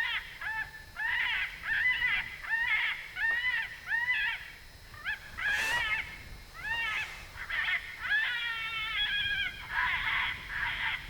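FoxPro Spitfire electronic predator caller playing a recorded animal call: a run of high whining cries, each rising and falling in pitch, about two a second with brief gaps, and a few longer held cries later on. A single sharp click about halfway through.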